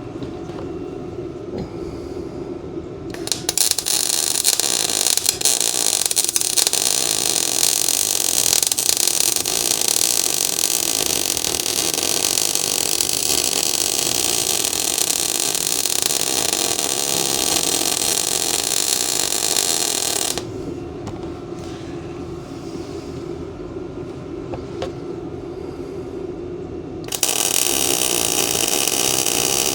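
Best Arc MIG 145 wire welder's arc crackling and hissing while running a bead, in two runs: one lasting about seventeen seconds that starts a few seconds in, then another starting near the end. A steady hum fills the pause between them.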